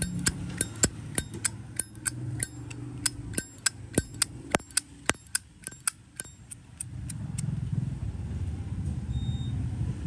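A 1998 high-polish chrome Zippo windproof lighter's lid is flicked open and snapped shut over and over, about three sharp metallic clicks a second, each with a short high ring. The lid sound is crisp and good. The clicking stops about seven seconds in, leaving a low background rumble.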